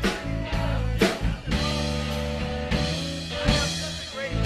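Live rock band playing in a room: electric bass and guitar holding notes under a Tama drum kit. Several loud drum and cymbal hits fall about a second apart.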